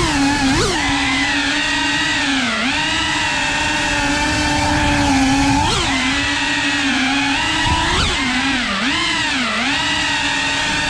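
A 3.5-inch cinewhoop FPV drone's motors and propellers buzzing steadily at a high pitch, the pitch dipping and briefly jumping several times as the throttle is eased off and punched during the flight.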